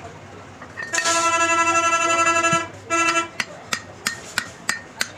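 A vehicle horn sounds: one long steady blast of about a second and a half, then a short one. It is followed by about six sharp hammer strikes on metal, roughly three a second.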